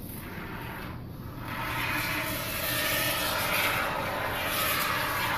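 A can of Great Stuff expanding spray foam hissing as foam is pushed out through its straw nozzle. The hiss breaks off briefly about a second in, then runs on steadily and louder.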